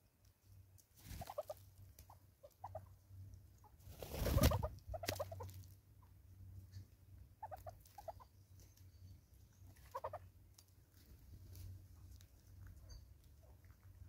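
Southern red-billed hornbills arriving at a seed-strewn stump: a loud flurry of wingbeats about four seconds in, and a few short clucking calls scattered through.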